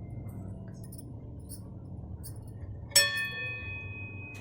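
A metal spoon strikes a steel pan once, about three seconds in, with a clear ringing clink that dies away over more than a second. A faint low hum runs underneath.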